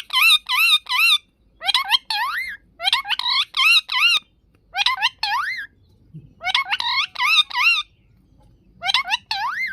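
A parrot giving bursts of quick, rising, warbling whistles, several sweeps to a burst, about six bursts with short pauses between.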